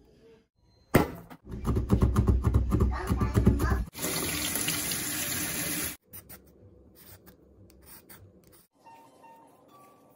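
Kitchen prep sounds in quick cuts: about three seconds of loud, rapid knocking and rustling, then water running from a tap for about two seconds that cuts off suddenly, then faint scraping of a green mango being shredded.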